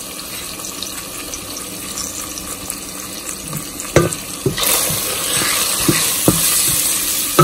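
Wooden spoon stirring spices into hot oil in a stainless steel pan, knocking against the pan several times in the second half. The oil sizzles steadily, growing much louder a little past halfway as the burner is turned back on.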